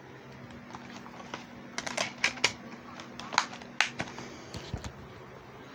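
A quick run of sharp clicks and taps over a steady low hum; the hum stops near the end.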